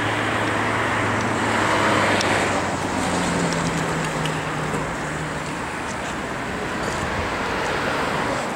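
Street traffic: motor vehicles driving past with tyre and engine noise, swelling as one passes about two seconds in, and a low engine hum underneath.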